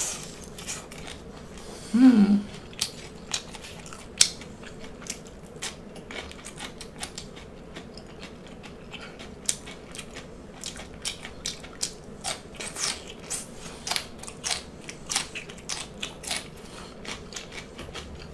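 Close-miked chewing and biting of deep-fried salt and pepper shrimp and sautéed water spinach (ong choy): a steady run of short crisp crunches and mouth clicks. About two seconds in comes one brief louder sound with a rising pitch.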